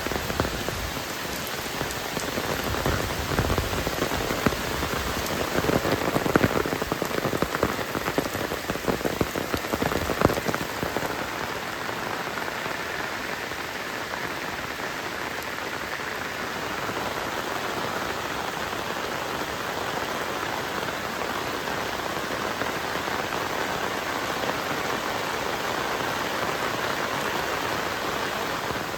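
Heavy rain falling steadily on surfaces, with louder close drops and splashes striking irregularly for the first ten seconds or so before it settles into an even hiss.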